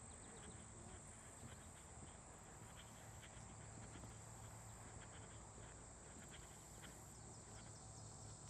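Near silence: faint outdoor background with a steady high whine and scattered faint ticks.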